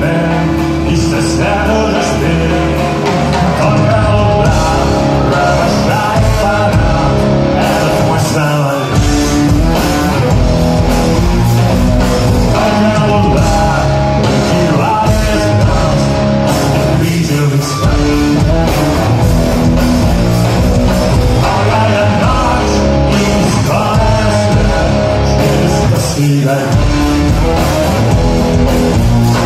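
A rock band playing live at full volume, with electric guitars to the fore, heard from the audience in a concert hall.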